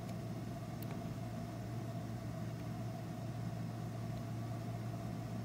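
A steady low hum with a faint higher tone over it, unchanging throughout, and a faint click about a second in.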